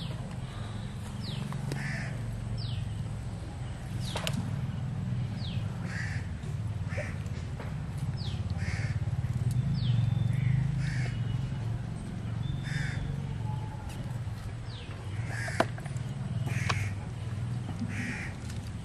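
Crows cawing, one short caw every second or so with a pause in the middle, mixed with a few brief downward chirps from other birds, over a steady low hum.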